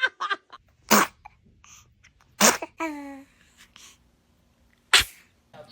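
A baby sneezing three times, each a short, sharp burst, about a second and a half to two and a half seconds apart; the second sneeze is followed by a short little vocal sound from the baby.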